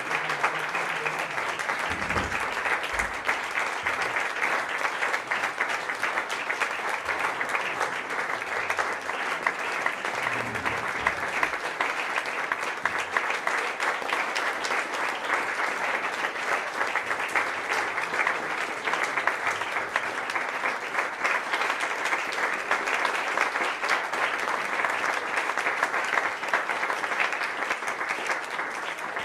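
Large audience applauding, a dense and steady mass of clapping that keeps an even level throughout.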